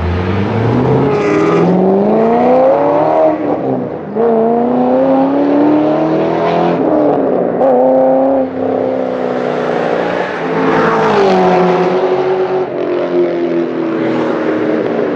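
Chevrolet Corvette C6 Z06's LS7 V8 through a Borla S-type exhaust, accelerating hard and pulling away through several upshifts: the engine note climbs, drops sharply at each gear change and climbs again. Near the end it fades as the car moves off.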